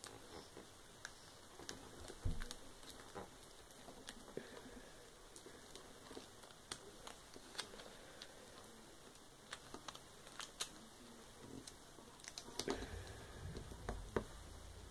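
Faint, irregular ticks and crinkles of clear tape and mesh netting being pressed and smoothed down onto a tabletop by hand, with one soft knock about two seconds in.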